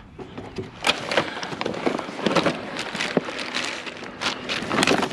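Cardboard boxes, plastic bags and plastic junk being rummaged through by a gloved hand: irregular rustling and light knocks.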